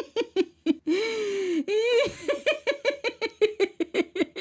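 A woman laughing in a high voice: a few short bursts, a drawn-out note about a second in, then a fast run of giggles.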